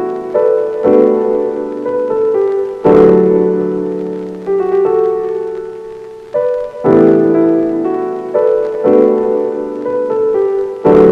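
Soft background piano music: slow chords struck every second or two and left to ring out.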